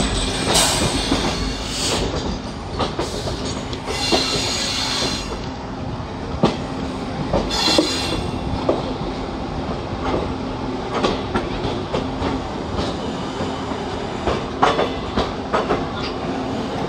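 Passenger train rolling into a station, heard from on board. The wheels clack over rail joints and points over a steady rumble, with a few brief high metallic squeals in the first half.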